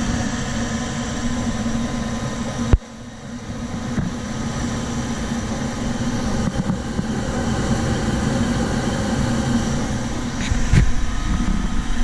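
Goodman gas furnace running with its burners lit on a new gas valve: a steady hum from the draft inducer motor and burners. There is a sharp click about three seconds in and a few low knocks near the end.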